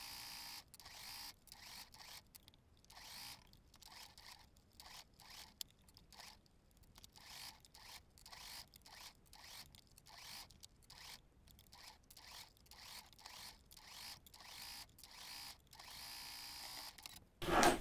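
Sewing machine stitching a seam at slow speed: a faint, even run of short stitch sounds about every half second, with a steady motor hum at the start and again near the end.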